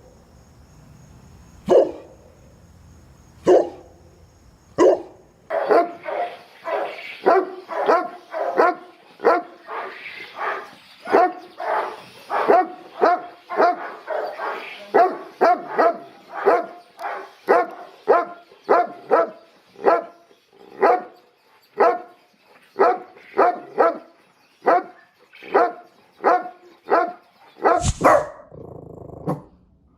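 A dog barking: a few single barks about two seconds apart, then rapid, steady barking at about two to three barks a second. A loud sharp noise comes near the end.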